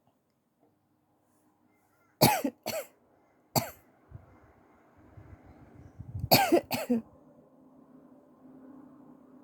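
A person coughing in short fits from a tickle in the throat: two coughs about two seconds in, a single one a second later, then three in quick succession near the middle.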